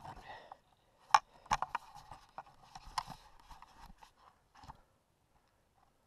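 A gloved hand handling a helmet-mounted GoPro in its housing: a run of sharp knocks and clicks with rubbing and rustling, the loudest knock just after a second in, stopping about five seconds in.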